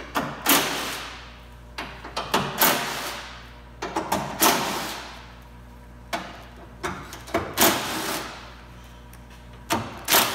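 Cordless impact driver run in a series of short bursts, backing out the 10 mm bolts that hold a truck bedside on, with sharp clicks between bursts.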